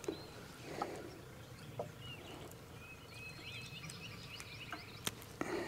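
Birds chirping faintly in the background: a run of short chirps that rise and fall. Over them come a few light clicks and knocks of fishing tackle being handled, the sharpest about five seconds in.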